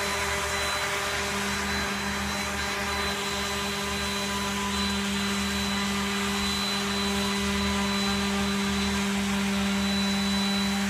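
Homemade sander built on a Roomba robot vacuum, running steadily: an even electric motor hum with a high whine, the lower hum growing stronger about a second in.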